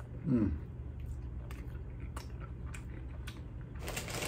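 Wet chewing of a mouthful of enchilada, with a short falling "mmm" hum about half a second in and scattered soft mouth clicks. A louder scratchy noise starts near the end.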